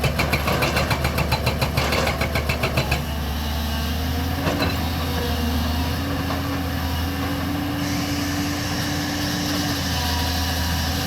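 Hydraulic rock breaker on a JCB 215 excavator hammering rock in rapid, even blows, about seven or eight a second, stopping about three seconds in. The excavator's diesel engine then runs on steadily.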